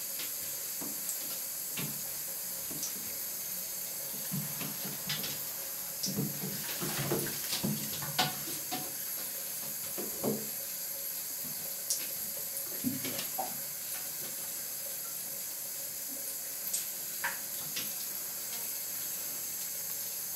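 Kittens playing in a bathtub: scattered light taps, scrapes and rustles of paws and claws on the tub and of the trailing plant stems they pull at, busiest in the middle, over a steady hiss.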